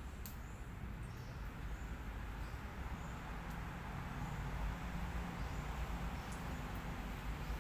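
Steady background noise: a low rumble under an even hiss, with a few faint, short, high clicks.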